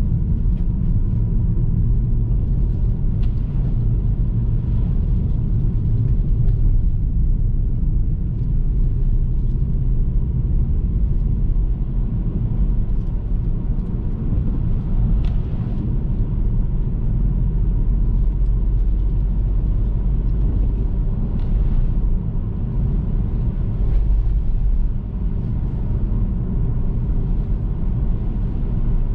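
Car driving on a rainy road: a steady low rumble of engine and tyre noise, with faint scattered ticks.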